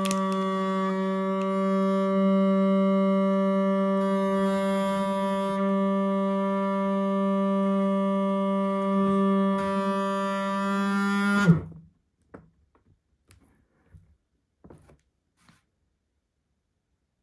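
A food vacuum sealer's pump running with a steady, even hum. About eleven and a half seconds in, its pitch drops quickly as it winds down and stops. A few faint clicks follow.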